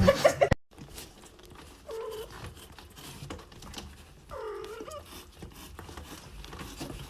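A cat meowing softly twice, short curved calls about two and four and a half seconds in, over light scattered tapping. A loud music hit cuts off in the first half second.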